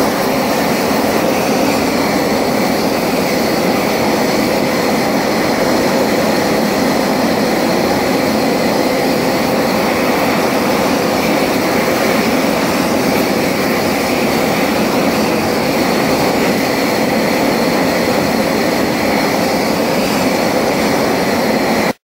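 High-intensity gas torch burning with a steady, loud roar as its flame plays on the test blocks; the sound cuts off suddenly near the end.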